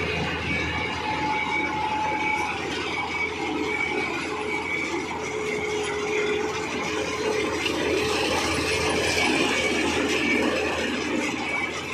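Fieldking combine harvester running as it cuts ripe rice: its engine, reel, cutter bar and threshing mechanism make a steady mechanical clatter.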